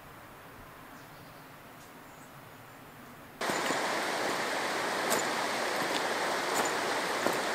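Faint quiet ambience, then about halfway in a steady rush of river water comes in, with a few footsteps crunching on the pebble bank.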